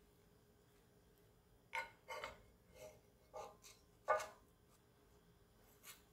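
Spatula knocking and scraping against a nonstick frying pan as it is worked under soufflé pancakes: a handful of short clicks, the loudest about four seconds in.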